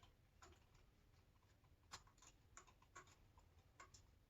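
Faint, scattered light clicks and taps, about eight in all, from an Allen key and small parts being handled on an air rifle's cheek-piece.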